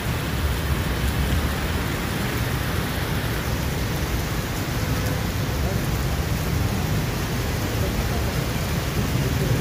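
Heavy monsoon rain pouring steadily onto a wet street, a constant hiss, with motor traffic driving through the water.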